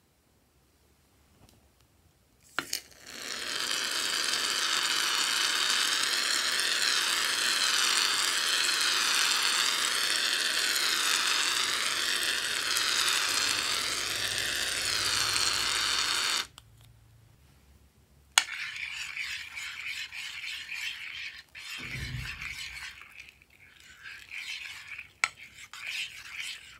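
An aerosol foam can sprays in one long, steady hiss with a wavering sputter, starting about three seconds in and cutting off abruptly past the middle. After that, the thick foam is stirred and scraped in a glass dish with irregular squishing and scraping.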